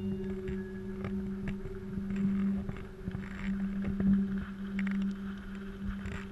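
A steady low mechanical drone, like a motor running, with a few scattered knocks, the loudest about four seconds in.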